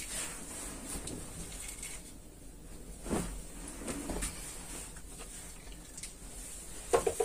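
Fabric being handled on a table: a length of dress cloth unfolded, shaken out and smoothed flat, with soft rustling and a couple of louder brushing swells about three and four seconds in.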